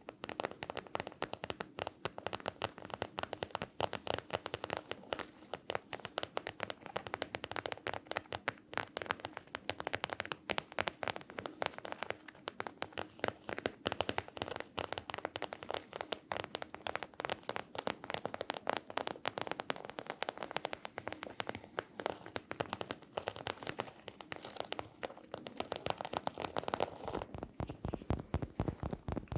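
Rapid ASMR tapping on objects: many quick, crisp taps a second without a break, turning to heavier, deeper taps near the end.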